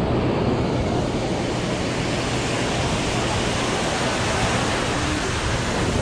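Steady, even wash of ocean surf on a sandy beach, with wind on the microphone.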